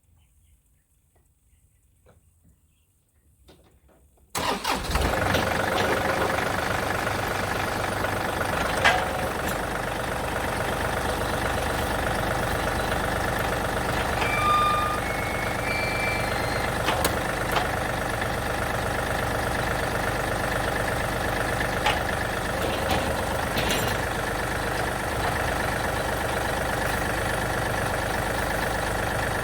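Tractor engine starting about four seconds in, then running steadily, test-run after a pinched hydraulic line was replaced.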